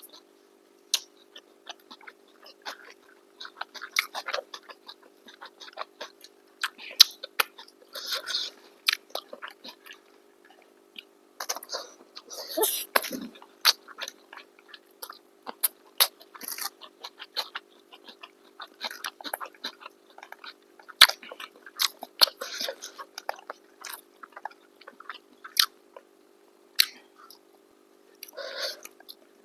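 Close-up chewing and mouth sounds of people eating chicken biryani: irregular smacks and clicks with a few longer noisy bouts of chewing.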